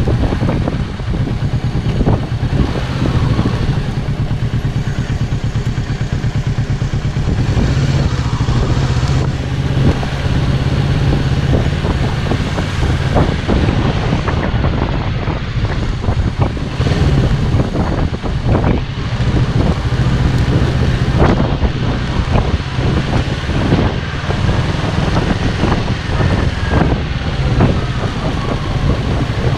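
2017 Kawasaki Z650's parallel-twin engine through its stock exhaust, running steadily at low revs as the bike rolls through traffic, with no big revving.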